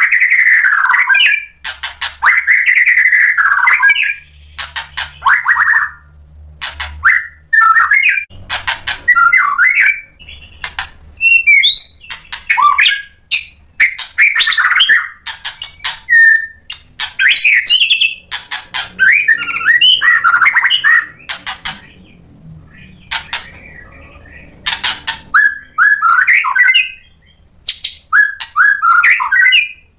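White-rumped shama singing a loud, varied song in quick bursts: whistled phrases alternate with sharp, harsh rattling notes, with short pauses between bursts.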